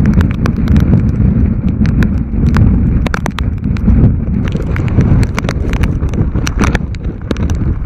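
Storm wind blasting straight onto the camera microphone, a heavy low rumble that surges and dips, with many sharp irregular taps and crackles over it.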